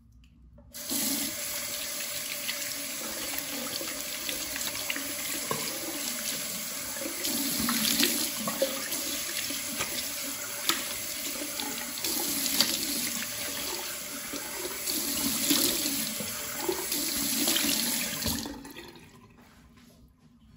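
Bathroom mixer tap running into a sink while hands are rubbed and rinsed under the stream, the splashing swelling now and then. The water comes on about a second in and is shut off near the end.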